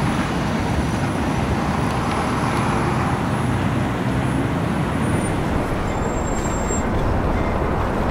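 Steady low rumble of vehicle engines and street traffic.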